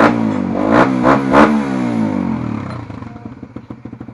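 Suzuki Raider 150 Fi's single-cylinder engine breathing through an aftermarket Apipo exhaust pipe, revved in several quick throttle blips, then dropping back to a steady idle about three seconds in.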